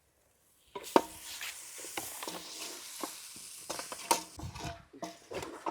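Food sizzling in a hot pot while being stirred, with a few knocks of the spoon against the pot; the sizzling starts about a second in.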